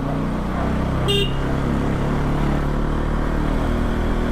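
Bajaj Pulsar NS200's single-cylinder engine running steadily through an Akrapovic exhaust with its dB killer fitted, at an even cruising pace. A short horn toot sounds about a second in.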